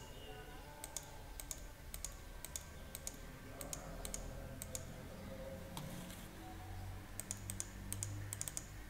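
Light, irregularly spaced clicks at a computer, one or two at a time, with a quick cluster near the end, over a faint low room background.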